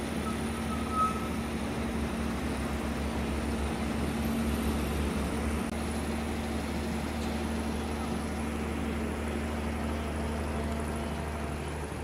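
An engine running steadily, a low even hum that holds the same speed throughout.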